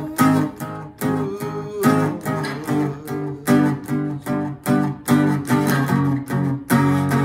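Acoustic guitar strummed in a steady rhythm, the chord shapes changing every so often.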